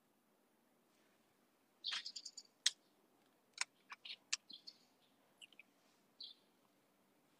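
Faint, quick bird chirps: a string of short high calls from about two seconds in to six and a half seconds in, mixed with a few sharp clicks.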